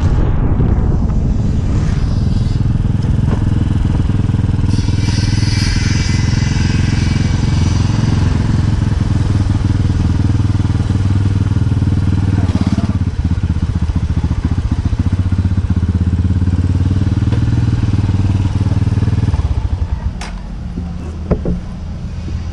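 Motorcycle engine running at low speed, heard close up from the rider's seat. Near the end the engine note drops away, followed by a couple of sharp clicks as the bike is brought to a stop and parked.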